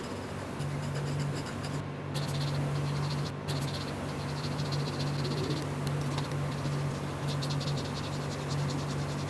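Fine scratching and crackling from tools working on a phone's circuit board, over a steady low electrical hum.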